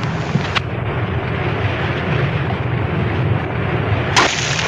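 Steady deep rumbling, rushing sea noise of a dramatized submerged submarine, with a faint sharp crack about half a second in and a louder one near the end.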